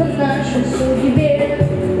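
Pop song with a boy's solo vocal over a backing track.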